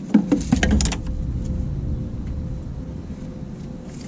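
A quick cluster of clicks and knocks in the first second as a power steering hose and hose clamp are handled and fitted, over a steady low rumble.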